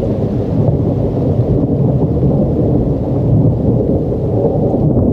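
Thunder rumbling low and continuously over steady rain, with no sharp crack.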